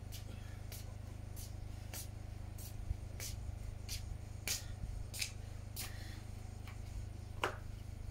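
Footsteps of plastic slide sandals slapping on wet concrete, a sharp step about every 0.6 s at an even walking pace, over a steady low hum.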